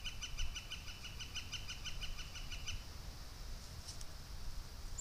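A bird calling a fast, even series of short repeated notes, about six or seven a second, that stops about three seconds in, followed by a few faint high chirps, over a low rumble.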